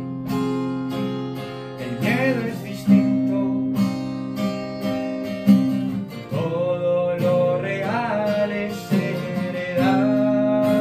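Acoustic guitar strummed in a steady rhythm, with a man's voice singing bending, drawn-out notes over it and settling into a long held note near the end.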